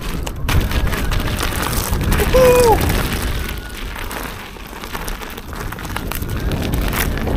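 Wind buffeting the microphone and the rumble of an electric unicycle's tyre over rough off-road ground, with scattered knocks. About two and a half seconds in there is a short pitched hum that falls at its end.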